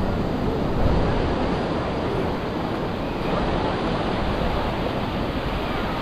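Steady wash of surf on a sandy beach, mixed with wind rumbling on the microphone.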